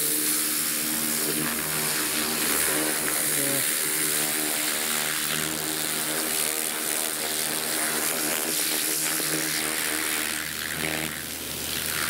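Pressure washer running: its pump's steady hum under the loud hiss of the water jet spraying a rubber van floor mat caked with grease and old expanding foam.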